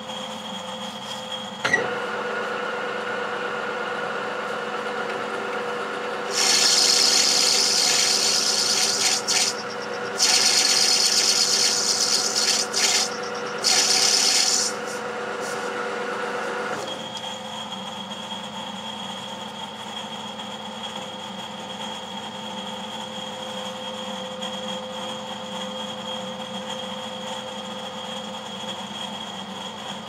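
Metal lathe switched on with a click about two seconds in, its motor and gearing running with a steady hum. Between about six and fifteen seconds, three passes of the cutting tool on a phosphor-bronze bar give a loud high hiss as the diameter is turned down to 11/16 in. The lathe is switched off about seventeen seconds in, leaving a steady low background hum.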